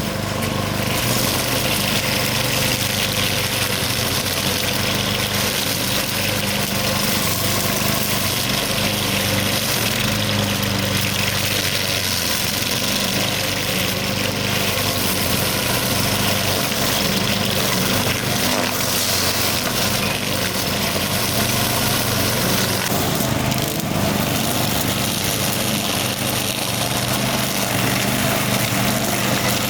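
Buffalo T55 high-wheel string trimmer's 200cc engine running steadily at an even speed.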